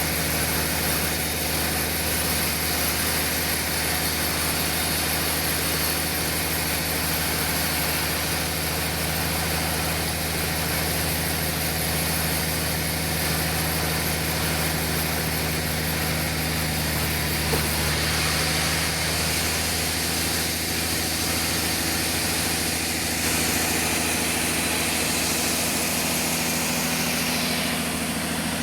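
Sawmill machinery running steadily: a constant engine hum under a high hiss, the hiss growing stronger over the last few seconds.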